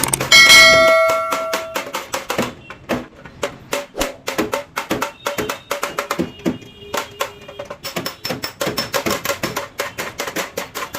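Background music with a fast percussive beat, opening on a ringing bell-like note.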